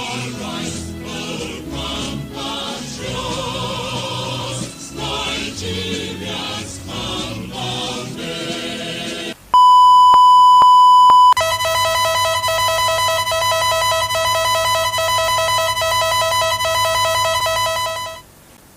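Background music for about nine seconds, then a loud steady single-pitch beep for about two seconds, then a harsh many-pitched emergency alert attention tone for about seven seconds that cuts off near the end.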